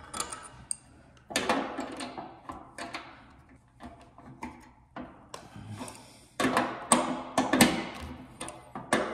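Adjustable wrench working the mounting bolts of a furnace blower motor loose by hand: irregular metallic clicks and knocks of the wrench on the bolts and the sheet-metal blower housing, busier in the second half.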